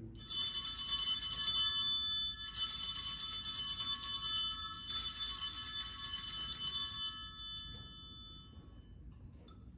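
Altar bells, a cluster of small brass bells, shaken in about three runs of ringing for some seven seconds and then fading away. This is the ringing at the elevation of the host during the consecration.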